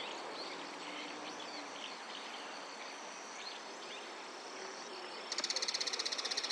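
Bull-headed shrike calling: a few faint short notes, then about five seconds in a loud, rapid, harsh chatter of about a dozen notes a second.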